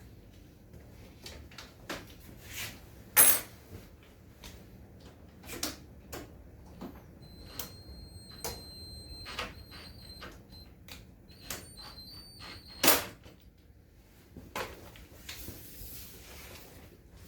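Irregular knocks and clatter of parts and tools being handled, with two louder knocks, about three seconds in and near thirteen seconds, and a thin high whine for a few seconds in the middle.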